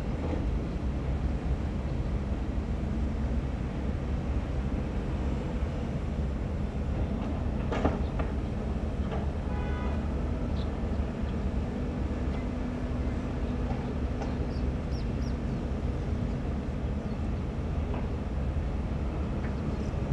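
Diesel engines of crawler excavators running steadily under load, a continuous low rumble. There is one sharp knock about eight seconds in.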